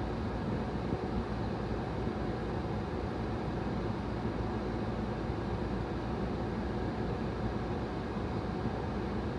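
Steady low rumble inside a parked car with its engine idling.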